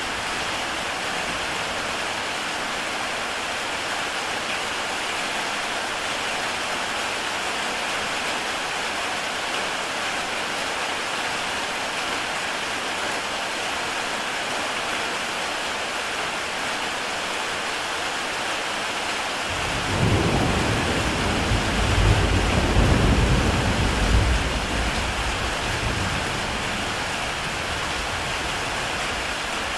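Heavy rain falling steadily on a tile roof. About two-thirds of the way through, a low rumble of thunder rises, peaks and fades over several seconds.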